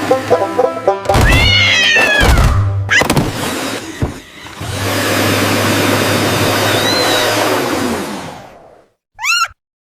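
Cartoon cat yowling in a loud falling cry over motor noise, then a robot vacuum's steady motor drone for a few seconds. It ends in a short falling meow near the end, with background music at the start.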